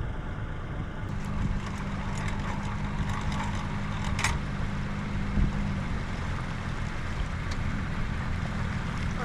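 A motor engine running steadily with a low hum and rumble, and a brief high hiss about four seconds in.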